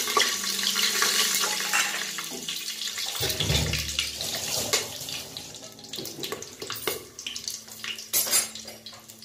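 Whole spices (cumin, cardamom, cloves, cinnamon and bay leaves) sizzling and crackling in hot oil, loud at first and dying down over several seconds. A dull low bump about three seconds in.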